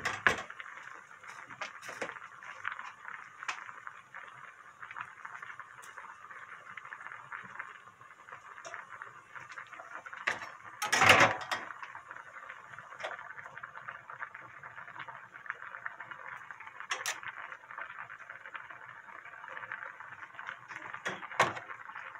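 Doenjang jjigae boiling in an earthenware ttukbaegi, a steady bubbling hiss. A metal ladle clinks against the pot a few times, loudest about eleven seconds in.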